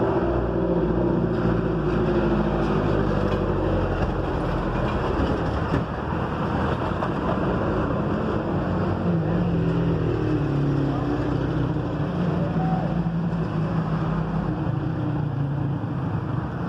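Steady engine drone, a low hum whose pitch drifts slightly up and down.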